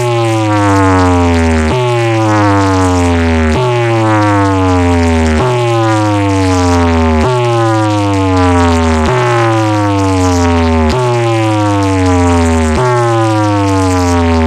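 DJ box sound system playing a loud repeated electronic effect: a falling tone sweep over a steady deep bass, restarting about every two seconds, eight times in a row.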